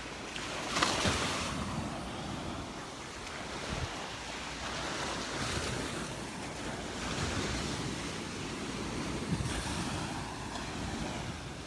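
Gulf of Mexico surf washing onto the beach, swelling and easing every few seconds, with wind buffeting the microphone.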